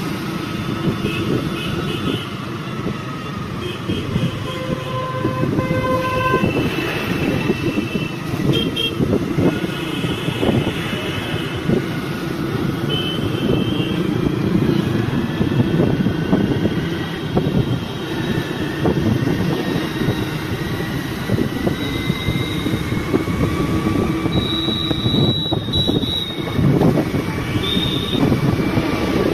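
Motor scooter running on a road with a continuous engine and wind rumble, while vehicle horns toot many times, in short and longer blasts.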